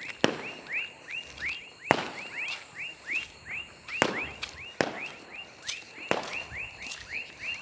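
A dense night chorus of small calling animals: short curved chirps repeating several times a second, overlapping one another. Sharp single knocks stand out every second or two.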